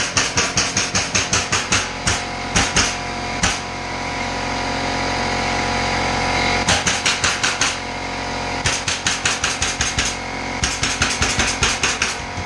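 Pneumatic staple gun firing staples through underlayment in quick runs of about five shots a second, each run lasting one to two seconds, with a few single shots and pauses between. An air compressor runs steadily underneath.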